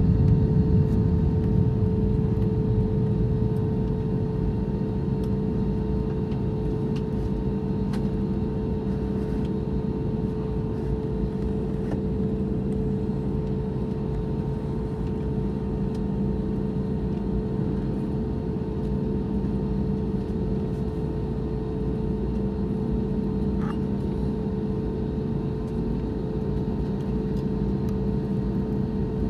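Steady cabin drone of an Airbus A321neo taxiing, heard inside the cabin: a low rumble with a steady mid-pitched hum over it. It is a little louder at the start and eases to an even level within the first few seconds.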